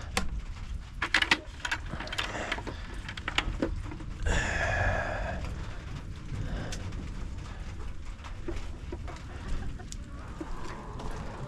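Hens clucking in a chicken coop, with one longer, drawn-out hen call about four seconds in, among scattered clicks and knocks.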